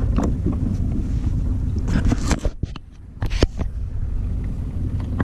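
Steady low rumble aboard a small fishing boat, with a cluster of sharp knocks and clicks from handling about two to three and a half seconds in.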